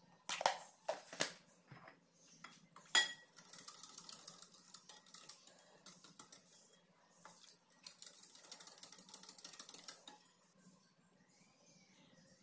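A metal wire whisk beating yogurt in a glass bowl, with rapid clinking and scraping of the wires against the glass in two spells. Before that come a few spoon taps and one ringing clink of metal on glass about three seconds in.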